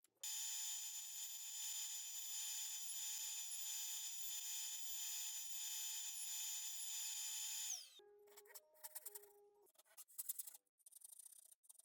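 Electric motor of a power tool running steadily with a constant whine, then winding down about eight seconds in, followed by a few short tones and scattered clicks.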